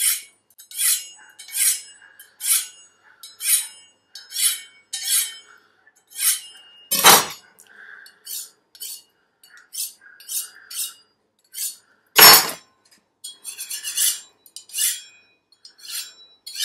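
Kitchen knife blades drawn lightly along a small honing steel, a quick metallic swish about once a second, straightening the freshly sharpened edges. Two louder knocks, about seven and twelve seconds in.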